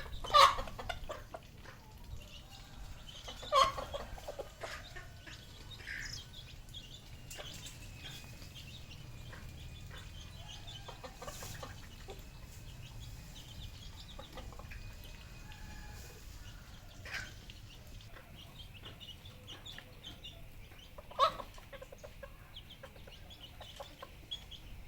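Red junglefowl clucking: a few short, loud calls, the loudest just after the start, about three seconds later and near the end, with softer ones between, over a steady faint high-pitched chirping.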